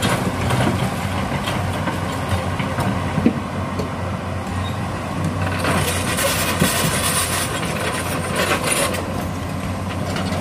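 Crawler excavator's diesel engine running steadily as the boom lifts the bucket, with a hiss of higher noise for a second or two past the middle.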